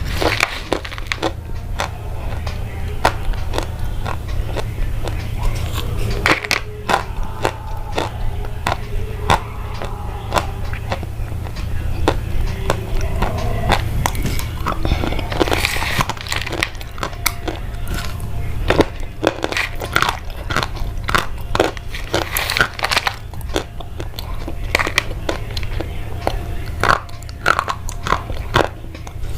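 Irregular crisp crunches and crackles, many sharp clicks in quick uneven succession, over a steady low hum.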